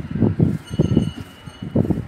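Wind buffeting the microphone in irregular low rumbling gusts, about four of them.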